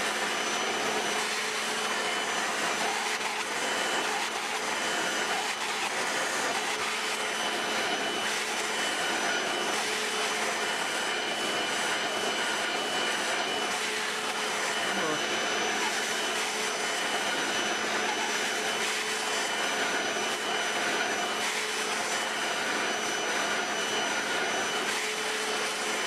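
Hoover Floormate hard-floor washer running steadily as it scrubs and sucks up water over a tile floor: a constant motor-and-suction rush with a steady high whine.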